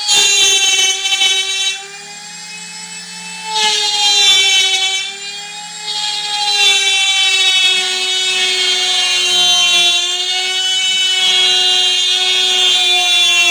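High-pitched motor whine of a power tool cutting a circular speaker hole in a wooden cabinet panel, the pitch wavering slightly as it cuts. The sound drops off briefly about two seconds in and again about five seconds in.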